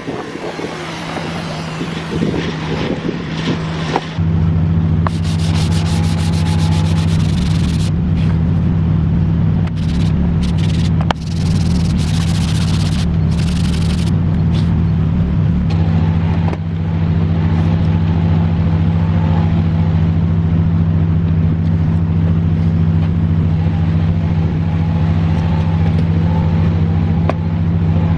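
A motor running steadily with a low hum, getting louder about four seconds in.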